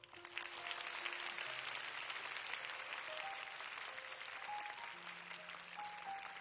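Concert audience applauding, starting about a third of a second in, over soft sustained notes from the band's instruments.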